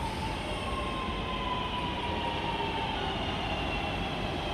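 Northern diesel multiple unit running slowly into a terminus platform: a steady rumble with thin wheel and brake squeal that sags slightly in pitch as the train slows.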